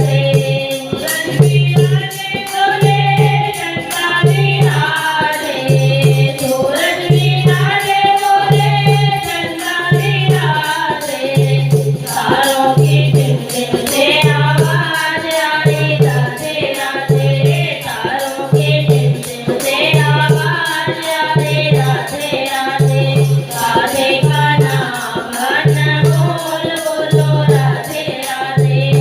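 Devotional bhajan music: a sung melody over a steady beat, with a low drum pulse about every second and a half and fast jingling percussion above it.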